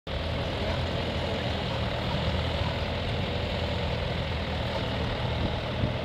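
Tractor's diesel engine running steadily as it pulls a reversible plough through stubble.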